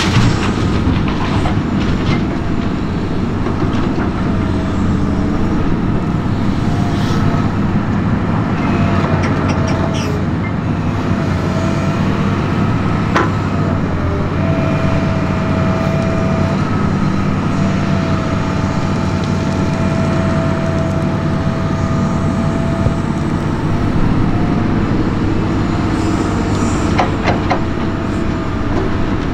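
Diesel engine of a Hitachi Zaxis 320 excavator running hard under load while it digs and swings, with a green Fendt tractor's engine running alongside. A steady higher whine comes through the middle. A few sharp knocks near the start and end come as soil and clods drop from the bucket into the steel trailer.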